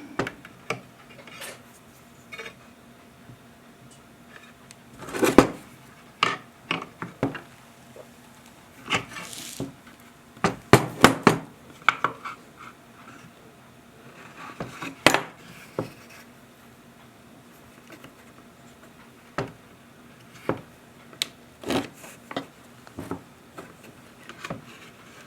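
Irregular clinks, taps and scrapes of small metal parts and hand tools being handled and adjusted on a work surface, with a busier run of knocks in the middle.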